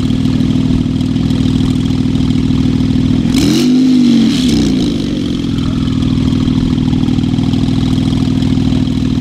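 Porsche 911 Turbo S twin-turbocharged flat-six idling steadily through its quad exhausts, with one short rev a little over three seconds in that rises and falls back to idle over about a second, accompanied by a brief hiss.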